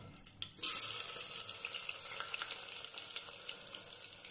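Sliced onions going into hot oil in an open aluminium pressure cooker: a sudden loud sizzle starts about half a second in and slowly fades as they fry, with scattered small crackles.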